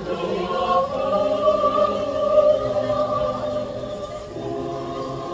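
A choir singing long, held chords, with the notes shifting lower about four seconds in.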